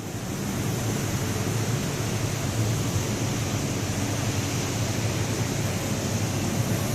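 Borewell drilling rig running: a loud, steady noise with a low rumble that swells up in the first half-second and then holds even.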